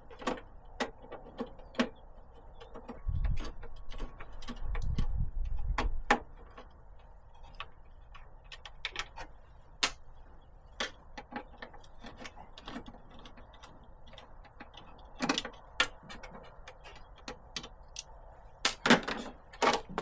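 Hand tools working on the Land Rover Defender's headlight surround: irregular clicks, ticks and light taps of metal and plastic, some in quick clusters. A low rumble joins about three seconds in and stops about six seconds in.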